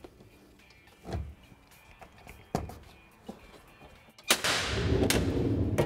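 A few faint knocks as a hydraulic rescue tool is seated in its metal tool mount. About four seconds in comes a much louder rattle with clunks, a metal slide-out tray running along its rails.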